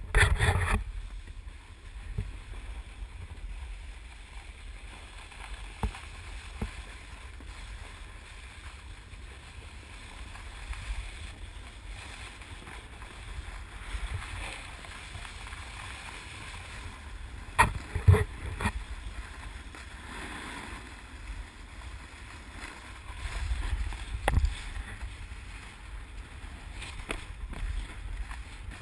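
Snowboard sliding over snow: a steady low rumble with some wind on the microphone. A few sharp knocks from handling the GoPro pole come through, two close together a little past halfway.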